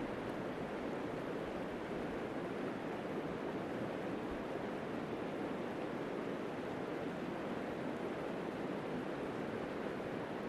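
Steady rush of the Elbow River flowing over its stony bed, an even, unbroken water noise.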